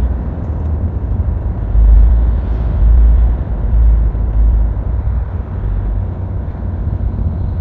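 Car cabin noise while driving: a steady low rumble of engine and tyres on the road, swelling and easing slightly.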